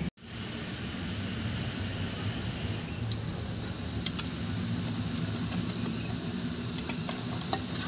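A steady low mechanical hum runs under the cooking, with a few short light clicks and taps of a metal spatula against an iron kadhai, more of them near the end.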